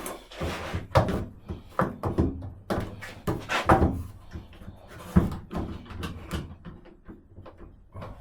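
A wooden board and a clamp being handled and set up on a workbench: a string of irregular knocks and thuds with some rubbing, and a run of small clicks near the end.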